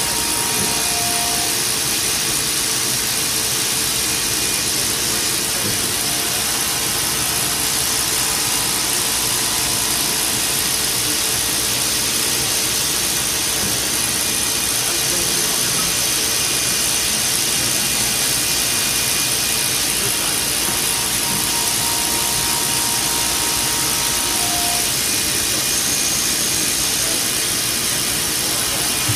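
CNC vertical milling machine running steadily as its end mill cuts linen phenolic: an even machining noise with a strong high hiss.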